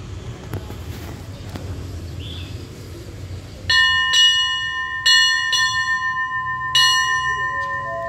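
A metal station bell struck by hand about five times in uneven groups, each strike ringing on. Near the end a rising run of chime notes begins.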